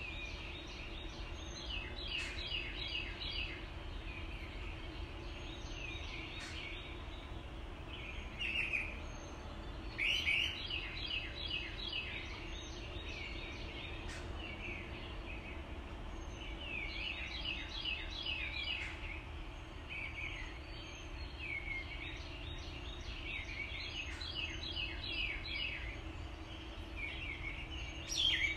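Songbirds singing in short phrases of quick repeated notes, a new phrase every few seconds, over the steady rush of water pouring over a low dam.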